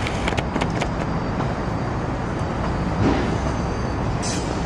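Steady outdoor city rumble, with short clicks and rustles from a small shoulder-mounted camera being handled on a jacket.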